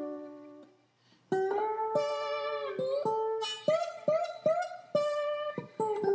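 Background music of a plucked guitar playing single notes. It pauses briefly about a second in, then carries on with a quicker run of notes.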